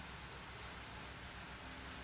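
Quiet room tone: a steady faint hiss and low hum, with one brief soft click about two-thirds of a second in.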